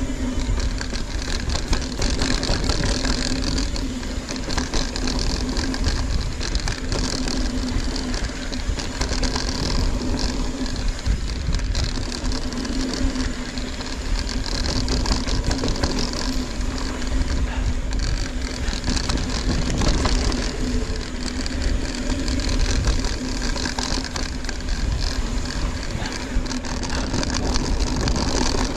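Ibis Ripmo mountain bike riding down a dirt trail: tyres rolling over rough ground and the bike rattling, with heavy wind on the microphone and a steady buzzing tone underneath.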